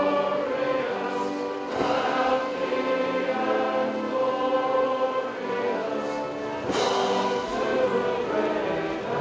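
Crowd of people singing together in chorus, slow held notes.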